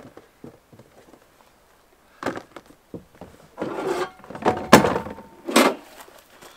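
Clatter and knocks of camp cooking gear being pulled out of a plastic tote and handled on a wooden picnic table. A few faint clicks, then a run of knocks and rattles starting about two seconds in, with the sharpest clanks around five seconds in.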